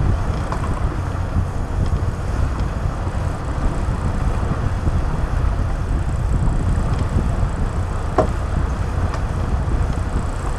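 Engines of a 58-foot sportfishing boat running steadily underway, a constant low rumble mixed with wind on the microphone and rushing water from the wake.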